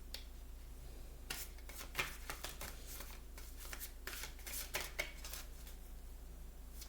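Tarot cards being handled: an irregular run of soft flicks and slaps as cards are shuffled and moved.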